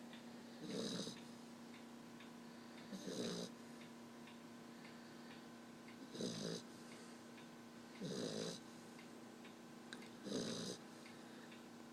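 Black Labrador puppy snoring while fast asleep: five short snores, one about every two to two and a half seconds.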